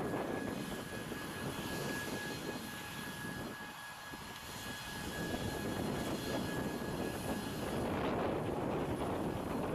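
ATR 72-600 turboprop on final approach: its two engines and propellers make a steady drone with a thin high whine. The noise dips about four seconds in, then grows louder through the second half as the aircraft comes closer.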